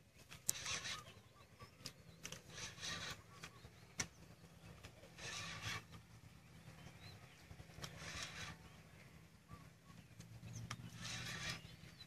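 Spinning reel sounding in short runs of about half a second, five times, while a hooked arapaima pulls against a hard-bent rod. A couple of sharp clicks, over a low steady hum.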